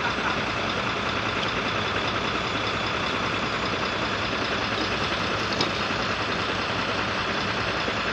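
Steady, even noise of road vehicles running at a railway level crossing, with no single event standing out apart from a small click about five and a half seconds in.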